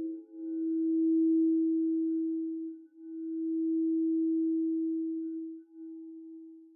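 A crystal singing bowl holds one low, steady, pure tone that swells and dips in loudness about every three seconds, then fades near the end.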